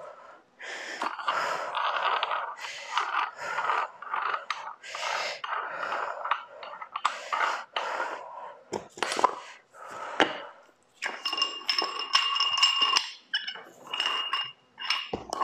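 Adjustable dumbbell being taken apart by hand: the spin-lock collar is unscrewed, and the weight plates scrape and clink on the threaded metal bar. A sustained metallic ringing scrape comes about two-thirds of the way through.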